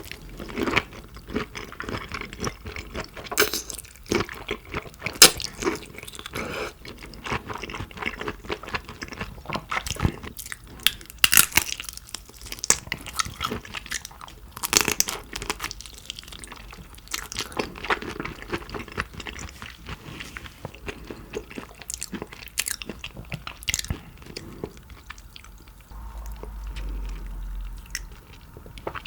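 Close-miked eating of shrimp: biting and chewing with many irregular sharp clicks and wet mouth sounds. A faint low hum joins near the end.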